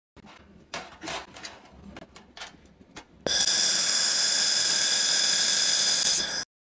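Handheld laser welding torch welding a seam on sheet metal: a loud, steady hiss with high whining tones for about three seconds, cutting off suddenly. Before it starts, a few light clicks and taps of the metal being handled.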